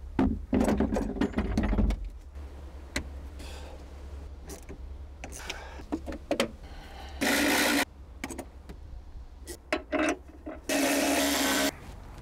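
Clatter of the car battery and its fittings being handled in the boot well, then scattered clicks. A cordless screwdriver runs briefly twice, for about half a second and then about a second, tightening the battery hold-down bracket.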